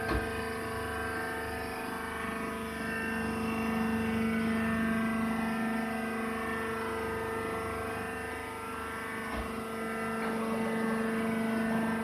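Vertical wood-shaving baler's hydraulic power unit, electric motor and pump, running with a steady hum made of several fixed tones. A short knock comes right at the start.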